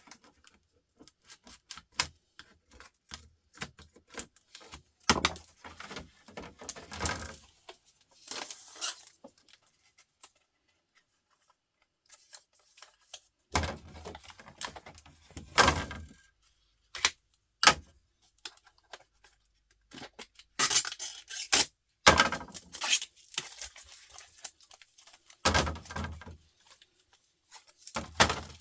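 Plastic being pried and ripped off a laptop part by hand: irregular clicks and cracks, with several louder spells of scraping and tearing a second or two long between quieter gaps.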